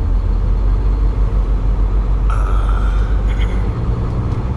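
Semi-truck rumbling along with a steady low engine and road rumble. A brief high-pitched squeal cuts in about two seconds in and lasts under a second.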